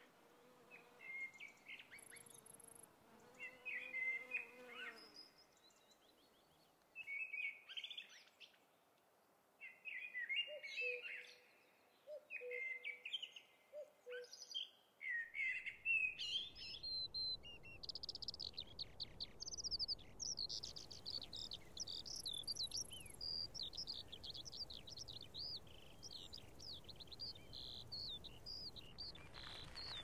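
Wild birds singing: short, separate warbling phrases at first. About halfway through, a steady background hiss comes up, and a fast, continuous twittering song of quickly repeated high notes carries on to the end.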